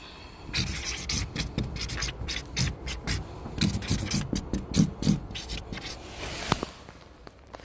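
Felt-tip marker writing on cardboard: a quick, irregular run of short scratching strokes, with the phone rubbing close against the surface.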